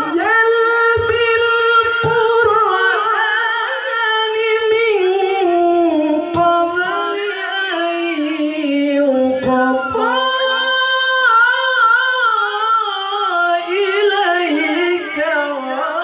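A male qari reciting the Qur'an in the melodic tilawah style into a microphone. He draws out long, ornamented notes in one unbroken phrase that sinks in pitch toward the middle and climbs again near the end.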